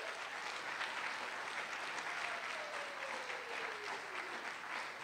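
Audience applauding and clapping steadily after a spoken-word poem. One long tone falls slowly in pitch over the clapping.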